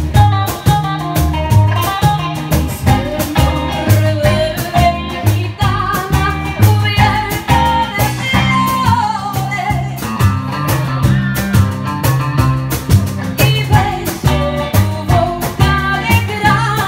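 Live band music: a woman singing over electric guitar and upright double bass, the bass sounding short notes in a steady beat.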